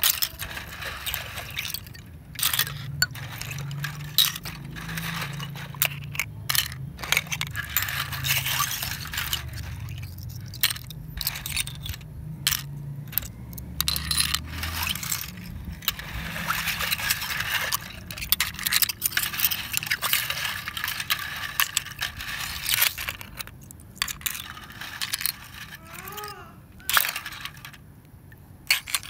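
Loose clam and cockle shells clinking and scraping against one another as a hand stirs through a heap of them, with many sharp clicks scattered throughout.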